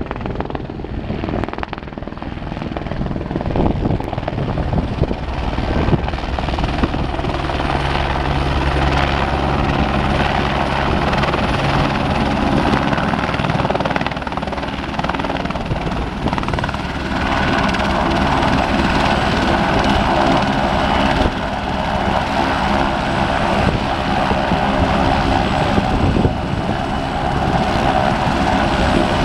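Light helicopter's turbine engine and rotor running steadily on the ground, with a continuous whine over the rotor noise. The whine grows louder about 17 seconds in.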